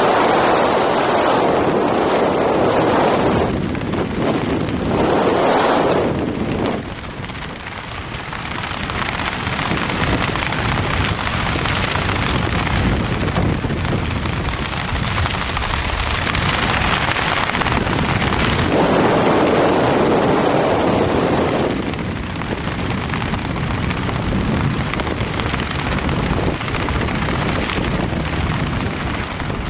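Wind rushing and buffeting over the microphone of a camera descending under a canopy, rising and easing in strength without any engine tone.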